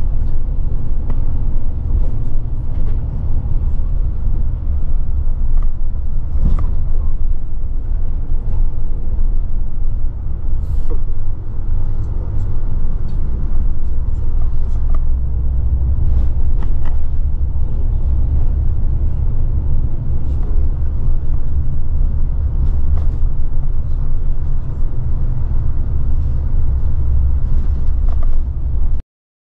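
Express bus driving, heard from inside the cabin at the front: a steady low engine and road drone with scattered light rattles and clicks. The sound cuts off abruptly near the end.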